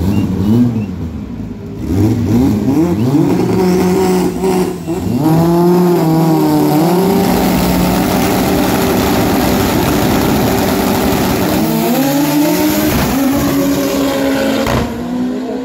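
A Volkswagen Gol 4x4 drag car's engine accelerating hard down the strip. The revs climb in steps through quick gear changes, then hold high and steady for several seconds. Late on they drop, and pick up again briefly.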